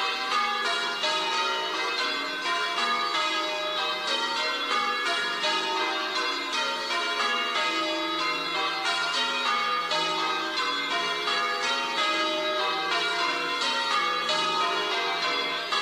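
Church bells ringing a continuous peal, many bells struck one after another so their ringing tones overlap.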